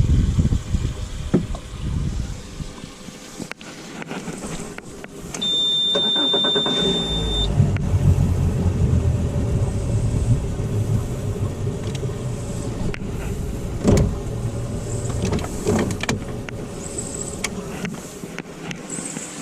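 A steady high beep lasting about two seconds, then a boat motor running steadily, with a few sharp knocks.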